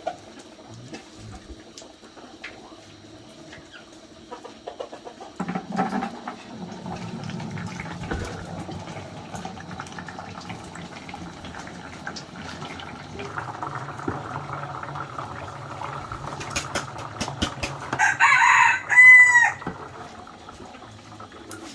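A rooster crows once near the end; it is the loudest sound. Before it come scattered clicks and knocks over a steady low hum.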